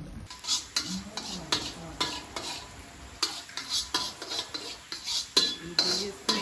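Metal spatula scraping and stirring food in a wok over a gas burner, with a steady sizzle of frying. The scrapes and clicks of metal on the wok come irregularly, several a second.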